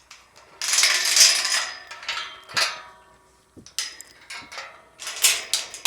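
Metal clattering and clanking in several bouts, with a brief ringing in some strikes; the loudest bout comes about a second in.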